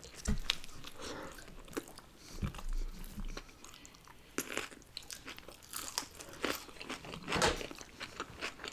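A person chewing and biting food close to the microphone, with irregular crunches and small mouth clicks throughout.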